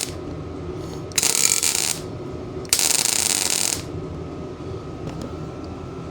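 Best Arc MIG 145 MIG welder crackling in two short bursts, one about a second in and a longer one near three seconds, as the arc is struck and stopped to stitch-fill a quarter-inch gap. A steady hum runs between the bursts.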